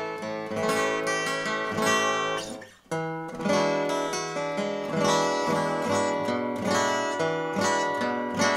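Silvertone H621 (Harmony-built) acoustic guitar, converted to X bracing, being played: picked notes and chords ringing out. The playing breaks off briefly about three seconds in, then resumes with a strong attack.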